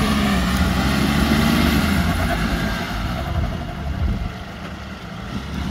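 GAZ-69 offroad trial special's engine revving under load as the vehicle climbs through a muddy gully. About three seconds in, the engine eases off and runs quieter.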